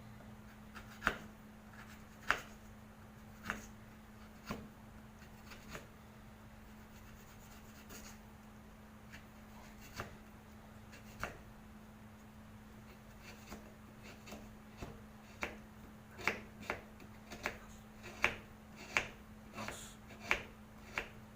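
Knife chopping a block of palm sugar into small pieces: sharp knocks about a second apart at first, coming faster, a few a second, in the second half. A steady low hum runs underneath.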